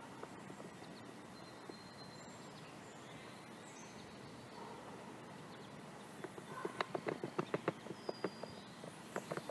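Faint suburban outdoor ambience with a few thin, high bird-like chirps. From about six seconds in there is a run of quick, sharp clicking knocks, several a second.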